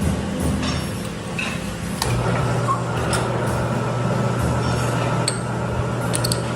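A steady low machine hum that starts about two seconds in, with scattered light metallic clinks of tools and parts over it.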